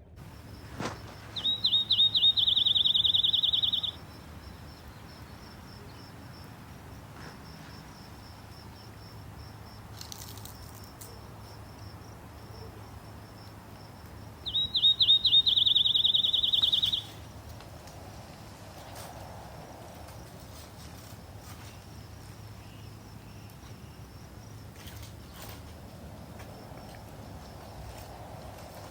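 A loud, high-pitched animal trill of about two and a half seconds, opening with a few separate notes and speeding into a rapid even buzz, heard twice about thirteen seconds apart. Beneath it runs a faint, steady, higher pulsing tone like a chorus of calling insects.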